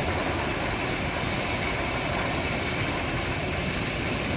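Storm Chaser roller coaster train climbing its lift hill: a steady clattering rumble of the lift at an even level.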